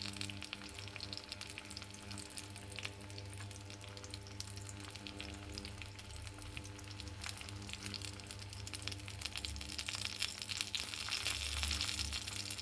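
Food frying in hot oil: a dense crackling sizzle that grows louder about ten seconds in.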